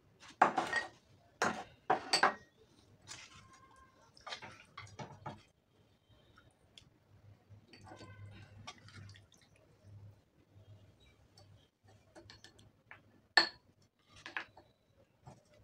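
Serving spoon clinking and scraping against a clay handi pot and a small bowl as pieces of mutton feet and soup are ladled out, with soft dribbling of liquid between. The knocks come irregularly, two of them loud: one right at the start and one near the end.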